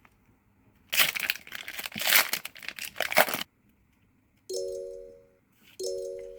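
Pokémon booster pack's foil wrapper being torn open and crinkled for about two and a half seconds. Then two short chime tones, each fading out, about a second and a half apart.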